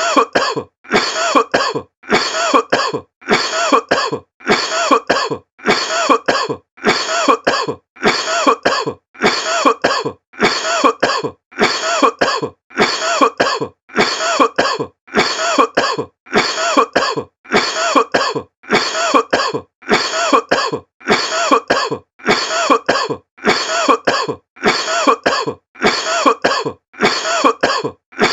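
A person coughing over and over at an even, unchanging pace, a little more than one cough a second. It is a repeated cough sound effect.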